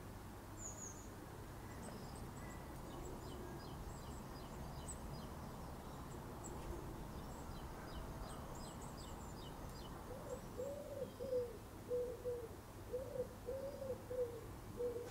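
Common wood pigeon (Columba palumbus) singing: starting about ten seconds in, a run of low cooing notes in two repeated phrases. Faint high twittering of a small bird comes before it.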